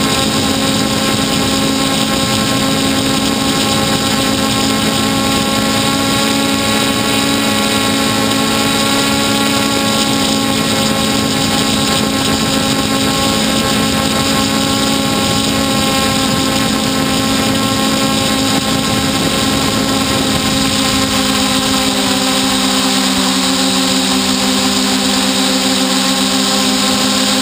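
Hexacopter's electric motors and propellers whirring steadily, heard close up from the craft's onboard camera with a hiss of air behind it. About 21 seconds in the hum shifts lower and splits into several tones as the motors change speed.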